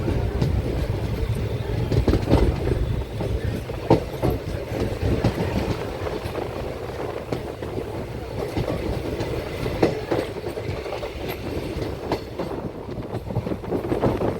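Passenger train running along the track: a steady low rumble of the coaches, with sharp wheel knocks over rail joints at uneven intervals.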